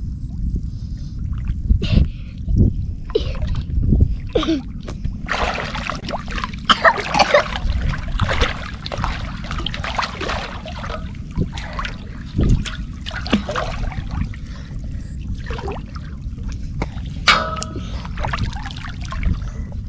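River water splashing and sloshing as a person wades and ducks under beside a floating steel basin, in irregular bursts that are busiest in the middle, over a steady low rumble. A short voice-like sound comes near the end.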